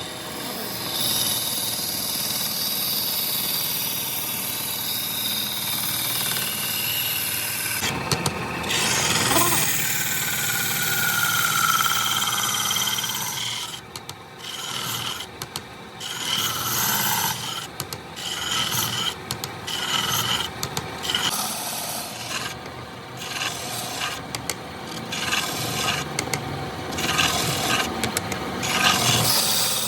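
Wood being rubbed and rasped, at first as a steady scraping and in the second half as short, separate strokes.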